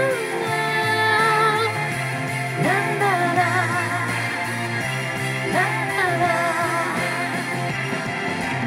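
Pop-rock song with a voice singing a wavering melody in three phrases over a steady bass line.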